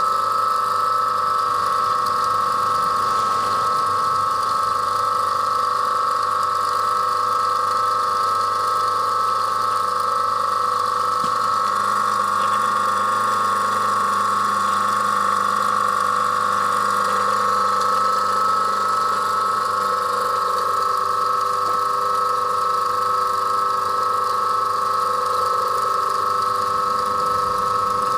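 AEI AC electric motor running steadily with no load on its bare shaft, giving a steady high whine over a low hum.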